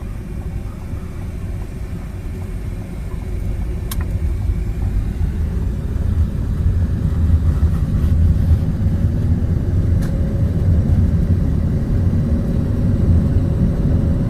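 Car cabin road noise while driving: a steady low rumble of engine and tyres that grows louder about halfway through, with a faint tone rising slowly as the car speeds up. Two faint clicks are heard, several seconds apart.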